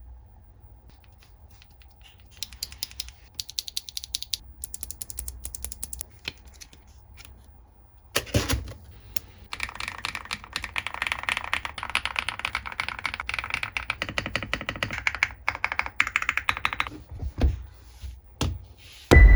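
Keys of a GravaStar Mercury K1 Lite mechanical keyboard being typed on: lighter clicks at first, then fast, dense typing from about halfway, with a few louder thumps in between.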